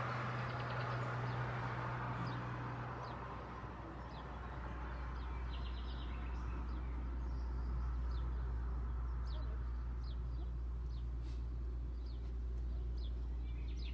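Small birds chirping in short, scattered calls over a steady low rumble. A passing car fades away over the first few seconds.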